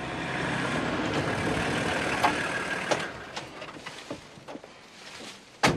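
Volkswagen LT van driving up: its engine and tyre noise swell and then die away as it slows, and a sharp knock comes near the end.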